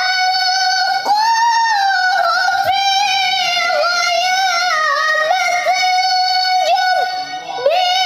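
A young woman's voice chanting Qur'an recitation (tilawah) in long, high held notes with wavering melodic turns. It pauses briefly near the end, then takes up the phrase again.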